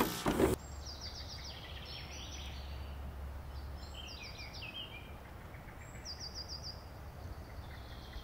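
Jungle ambience: a steady low rumble of wind under bird calls, short runs of four or five quick high chirps repeated several times. It opens with a brief loud burst of noise as the glitching tape title cuts out.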